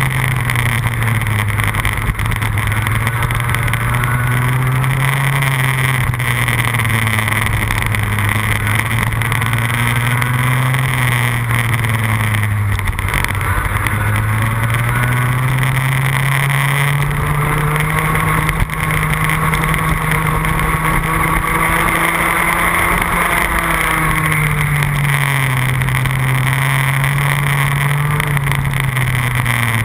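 Onboard sound of a 100cc two-stroke kart engine at racing speed, its pitch climbing as it accelerates out of corners and dropping back off the throttle into the next corner, several times over. There is a faint click about 12 seconds in and another about 19 seconds in.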